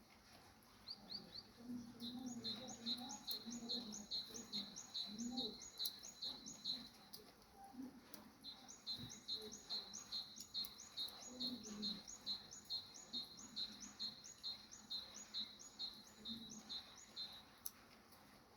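A small bird chirping in a long, even series of short, high chirps, about three a second, with a brief pause partway through.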